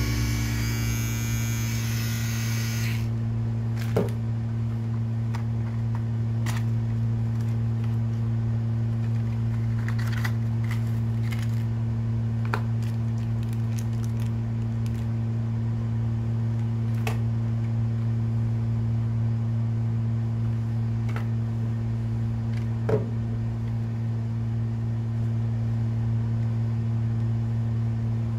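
A steady low electrical hum, with scattered light clicks and crinkles of plastic packaging being handled. Background music cuts off about three seconds in.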